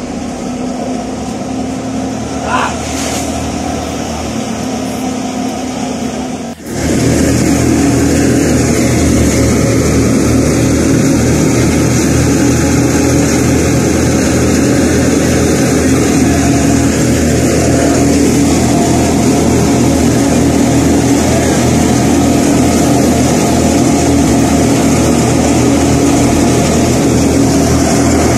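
Wheat threshing machinery running: a steady engine drone with a low hum. About six seconds in it breaks off for a moment and comes back louder.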